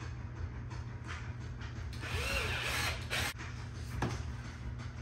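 Power drill running in one short whirr of just over a second, its pitch rising and falling, followed by a sharp click.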